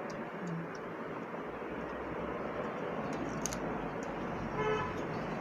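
Steady background traffic noise, with a short vehicle horn toot near the end.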